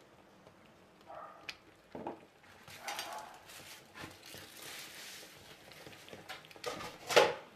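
Thick tomato meat sauce simmering in a pan, with irregular plops and bursts as bubbles break through. The loudest plop comes near the end.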